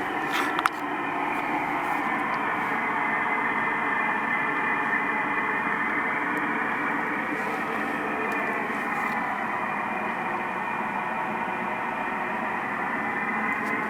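A steady drone coming from the sky that the recordist cannot explain: several long, slowly wavering tones over a hiss. There is a click about half a second in.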